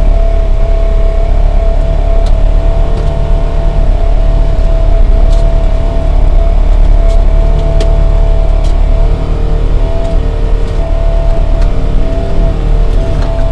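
Side-by-side UTV engine and drivetrain running steadily, heard from inside the cab as the vehicle crawls along a rough woodland trail. There is a steady whine over a deep rumble, with a few sharp knocks and rattles along the way.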